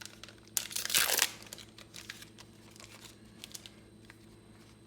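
Crinkling and tearing of a trading-card booster pack's foil wrapper. A loud tearing rustle comes about a second in, followed by a few lighter crinkles.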